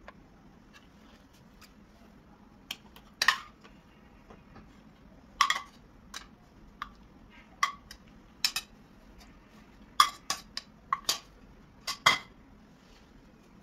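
Kitchen utensils and dishes clinking and knocking together: about a dozen short, sharp clinks at irregular intervals.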